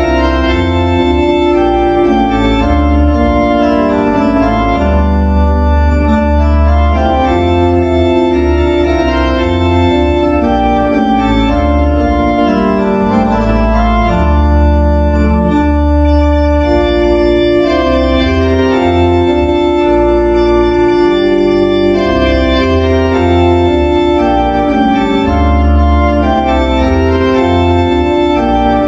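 Organ music: a slow piece played in sustained chords over a deep bass line, the chords changing every second or so.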